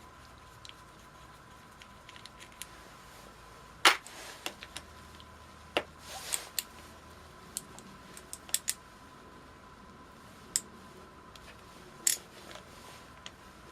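Scattered metallic clicks and taps of tools and small parts being handled while a bank of Honda Goldwing GL1100 carburetors is taken apart; the sharpest tap comes about four seconds in, with a quick cluster of clicks a little past halfway.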